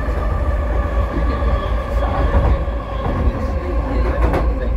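Vancouver SkyTrain car running at speed, heard from inside the car: a steady low rumble with a faint steady whine above it, and a couple of sharp knocks near the end.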